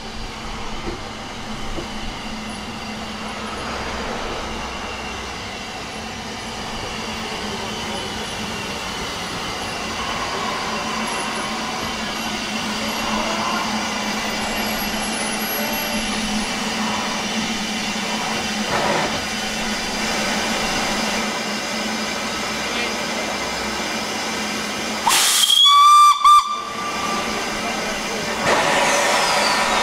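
Narrow-gauge steam locomotive on the Ffestiniog Railway with a steady hiss of steam, growing louder over the first several seconds. About 25 seconds in, the locomotive's steam whistle gives a short, shrill blast with a brief break in it.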